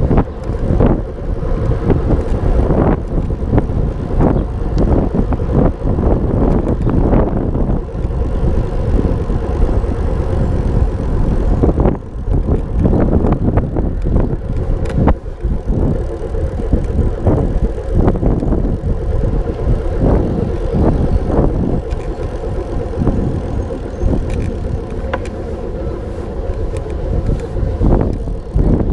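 Wind buffeting the microphone and road noise during a bicycle ride, a continuous low rushing with irregular gusts and knocks.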